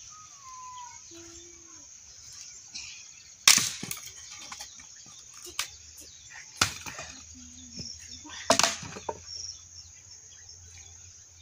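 Axe chopping firewood: a handful of sharp strikes of the blade into wood, a few seconds apart, the first the loudest.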